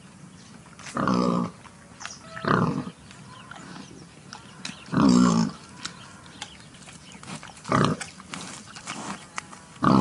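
Wild boar grunting: four short, pitched grunts a couple of seconds apart, with faint clicks between them.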